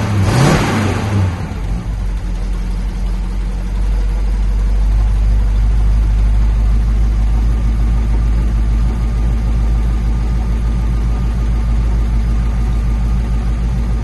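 1970 Dodge D500 dump truck's engine running after five years parked, fed through a single-barrel carburettor. A brief surge in the first second or so settles into steady running.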